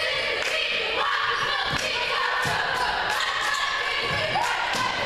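Basketball bouncing on a gym's hardwood floor as a player dribbles, several separate bounces, over a steady background of spectators and players talking and calling out.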